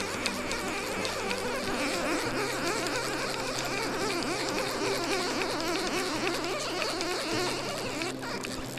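Fast-flowing river water rushing steadily, under a low, steady hum of sustained tones that shift pitch about two seconds in and again near the end.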